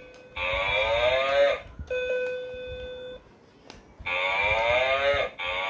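Cow-shaped electronic baby musical toy playing its built-in sounds as its buttons are pressed: a held electronic note, then recorded animal calls with a wavering pitch, three of them, with another held note between the first two.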